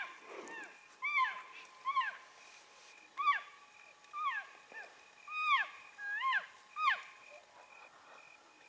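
Cow elk mewing: a string of short, high-pitched calls that each slide down in pitch, coming about once a second.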